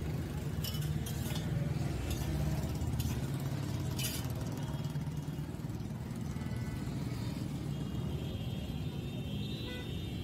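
Steady rumble of passing road traffic, with a few sharp clinks in the first four seconds from a spoon knocking against steel serving bowls.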